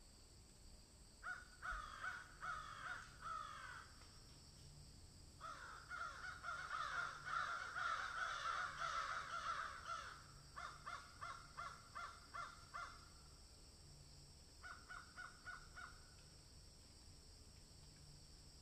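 Birds calling in runs of short, quickly repeated notes, several a second, coming in four spells with the longest and loudest in the middle, over a faint steady high hiss.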